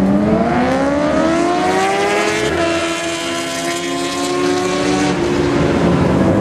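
Two sport motorcycles accelerating hard down a drag strip, their high-revving engines climbing steeply in pitch. There is an upshift about two and a half seconds in and another about five seconds in.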